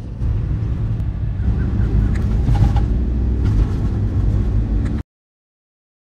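Low, steady rumble of engine and road noise inside a small van's cabin while it drives, cutting off suddenly about five seconds in.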